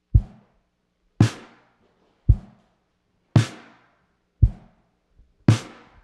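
Ludwig drum kit playing a slow beat on its own: bass drum and snare drum alternating, about one hit a second, three of each, the snare hits ringing on longer.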